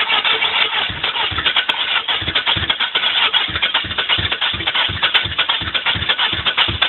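Chevrolet Cavalier's 2.4-litre four-cylinder being cranked over by the starter, a steady rhythmic chug of about three to four pulses a second, without catching. The engine won't start, and the owners suspect it has probably flooded the new spark plugs.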